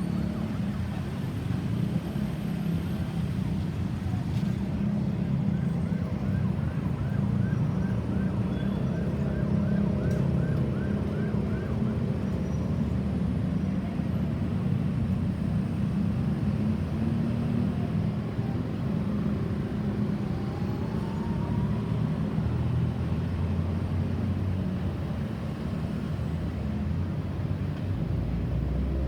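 Heavy road traffic running, with an emergency-vehicle siren faintly yelping over it in quick rising sweeps, about two a second, for several seconds in the first half. A single rising siren glide sounds again past the middle.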